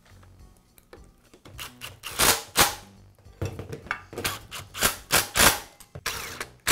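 Cordless impact driver running in short bursts, driving the screws that fasten the motor housing of a Skil circular saw to its motor and gearbox, with knocks from the saw being handled on the metal bench. The bursts start about two seconds in and come every half second to a second.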